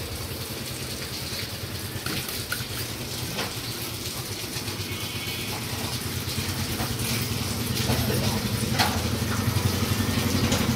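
A motor vehicle engine running nearby with a steady low hum that grows louder toward the end, with a few faint knocks of a butcher's knife against a wooden chopping block.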